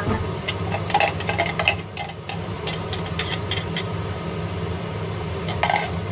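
A silicone spatula scraping blended chili paste out of a plastic blender jar into a frying pan, with scattered scrapes and light taps against the jar and pan, over a steady low mechanical hum.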